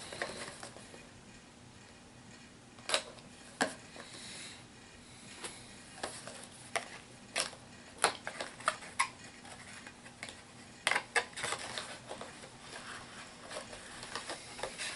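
A HeroClix booster being opened and its contents handled: scattered light clicks, taps and rustles of packaging and small plastic miniatures and pieces, with a few sharper clicks about three and three and a half seconds in and around eight seconds.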